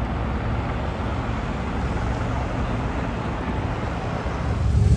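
Steady vehicle and traffic noise, with a deeper engine rumble swelling louder near the end.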